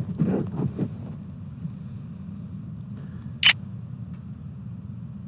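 A camera shutter sound, one short sharp click about three and a half seconds in, over a steady low rumble, with a few soft knocks in the first second.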